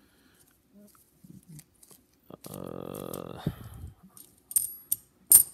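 Loose silver half-dollar coins clinking against each other as they are handled on a table, with sharp bright clinks from about four and a half seconds in, the loudest just before the end. Before that, a man makes a drawn-out low vocal sound for about a second and a half.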